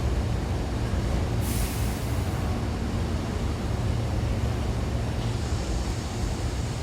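Hankyu 6000 series electric train at the platform, with a steady low hum and rumble. About a second and a half in, a short hiss of air lasts about a second, and a fainter hiss starts near the end.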